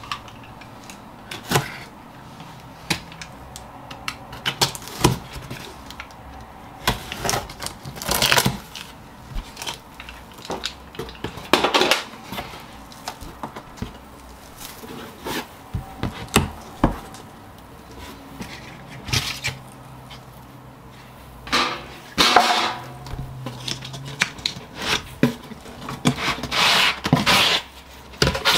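Cardboard shipping box being opened by hand: irregular scrapes, rustles and knocks as the flaps are pulled open and folded back and the boxed set inside rubs against the cardboard.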